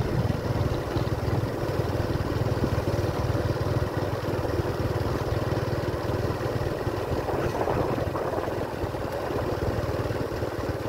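A motorbike's engine running steadily as it travels along a road, with a continuous low rumble.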